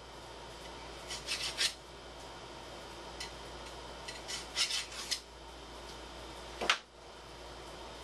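Small hand file rasping in short strokes across the cut end of a 5-start lead screw, deburring its thread grooves: one quick run of strokes about a second in and another about four seconds in. A single sharp knock comes a little before the end and is the loudest sound.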